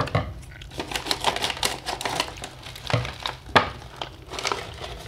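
A foil-lined plastic snack pouch crackling and crinkling as it is handled and torn open by hand. It gives a run of irregular sharp clicks, the loudest snap about three and a half seconds in.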